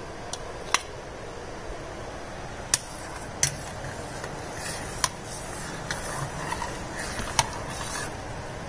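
Milk boiling in a steel pot on a gas stove, a steady hiss, with about five sharp metal clicks spread through as a spoon works condensed milk out of a tin can into the pot.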